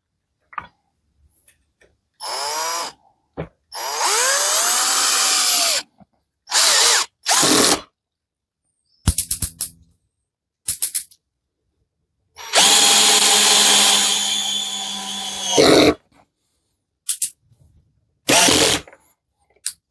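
Parkside PBSA 12 D4 12 V cordless drill-driver driving in a larger screw: the motor runs in about six short spurts, its pitch rising and falling with the trigger, the longest run about three and a half seconds near the middle. A few quick clicks come between the runs.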